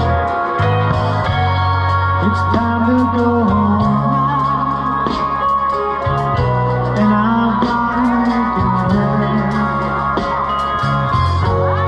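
Band music with electric guitar, bass and drums: steady bass notes under guitar lines, some of them sliding in pitch, over a regular beat.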